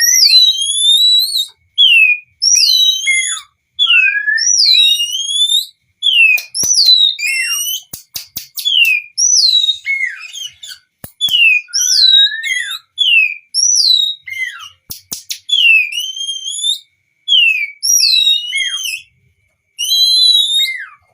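Oriental magpie-robin singing: a long run of loud, clear whistled notes that sweep down and up, given in quick repeated phrases. A short string of sharp clicks comes about seven to eight seconds in and again around fifteen seconds.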